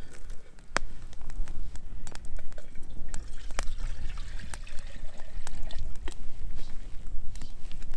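Liquid pouring and dripping into a pot for hot chocolate, with sharp crackles throughout and wind rumbling on the microphone.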